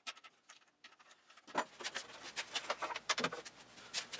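Light, irregular wooden knocks and clicks as cedar support-arm frames and the hinged back of a lounge chair are handled and moved. They start about a second and a half in, after near quiet.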